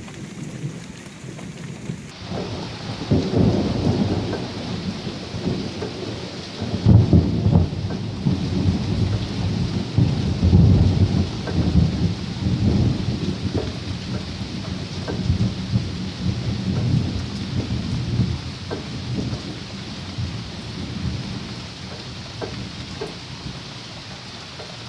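Steady rain falling, coming in about two seconds in, with a long low rumble of thunder that swells and fades several times through the middle. Single drops tick now and then toward the end.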